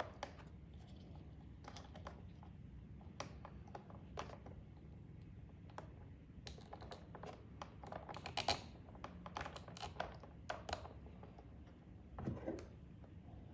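Faint, irregular small clicks and taps of wire leads and plastic parts being handled and pushed into a plastic pressure switch box, over a low steady hum.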